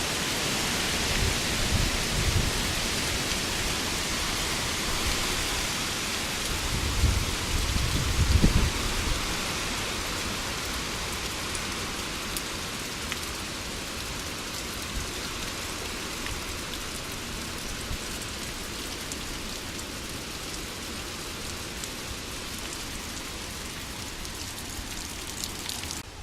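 Heavy hurricane rain falling steadily as a dense hiss that slowly eases. Low rumbles come in the first couple of seconds and again around seven to nine seconds in.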